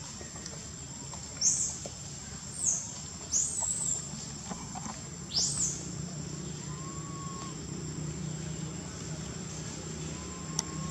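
Four sharp, high-pitched bird chirps in the first half of the clip, each a quick arching sweep. Beneath them runs a steady high insect drone and a low hum.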